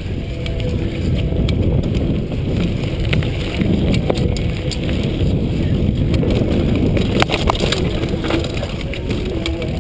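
Mountain bike ridden fast down a dirt singletrack: wind buffeting the chest-mounted camera's microphone and tyre noise on the dirt, with scattered clicks and rattles from the bike over bumps.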